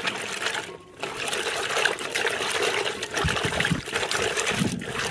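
Okra being washed by hand in water: water splashing and trickling, with a brief pause about a second in.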